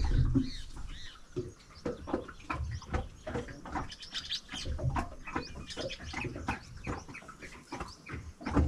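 Birds chirping, with scattered light clicks and knocks.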